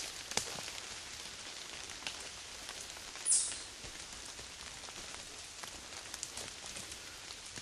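Rain pattering and dripping on forest leaves, a steady patter scattered with light ticks of drops. About three seconds in, a brief, louder high-pitched swish stands out.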